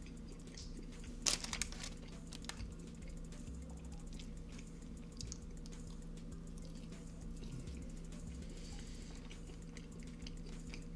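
Close-up eating sounds: a man chewing and biting into sauced chicken wings, with small wet clicks and crackles of the mouth. A brief louder crackle comes about a second in, all over a steady low hum.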